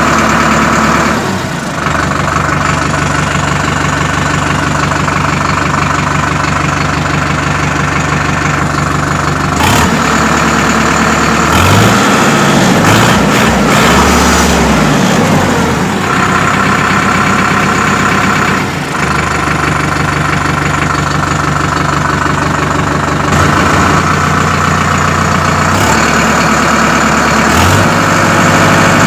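Tractor engine sound idling and running steadily, with a few revs rising and falling around the middle. It changes abruptly every few seconds, like spliced-together clips.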